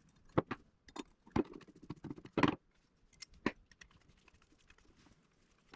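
Small metal door-latch parts clicking and clinking as they are handled and fitted together by hand: a run of sharp separate clicks over the first three and a half seconds, then fainter ticks.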